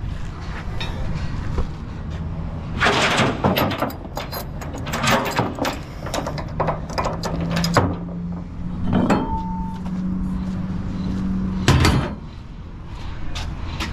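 Knocks, clanks and rattles of gear and a door or compartment being handled, over a low engine rumble. A steady hum comes in about six seconds in and stops near the twelfth second.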